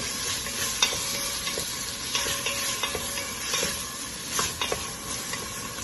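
Chopped onions and tomatoes sizzling in hot oil in an Instant Pot's inner pot as they are stirred, with a steady frying hiss and a few sharp clicks of the stirring utensil against the pot.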